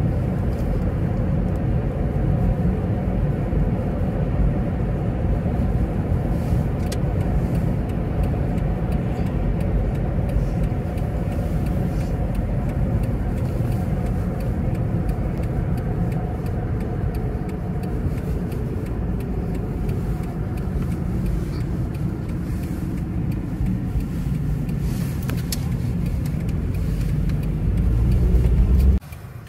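Car driving on a city road, heard from inside the cabin: steady tyre and road noise with engine hum. It grows louder just before it cuts off abruptly near the end.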